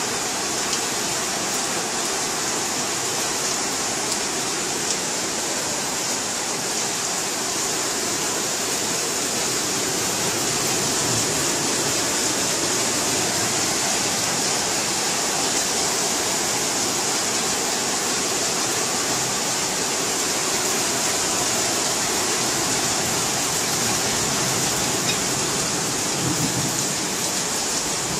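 Heavy thunderstorm rain pouring steadily, an even, dense hiss.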